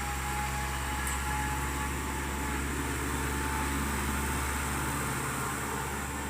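Tractor engine running at a steady pace, a constant low drone with no change in speed.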